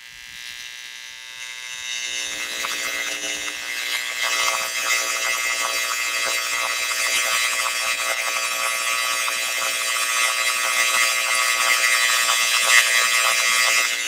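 Electromagnetic emissions from an electricity smart meter and its power mains, picked up by a Heliognosis AR1 VLF receiver and played as audio. It is a dense, steady electric buzz with hiss, with the mains hum filtered down so the meter can be heard. It fades in over about the first two seconds.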